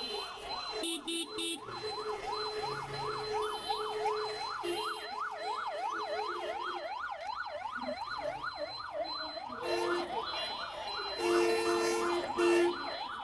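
A fast yelping siren wails up and down about three times a second in heavy road traffic. Vehicle horns beep in short blasts around it, loudest near the end.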